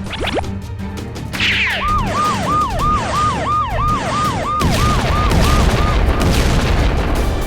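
Electronic siren yelping in quick rise-and-fall cycles, about two or three a second, fading out after about four seconds, over background music.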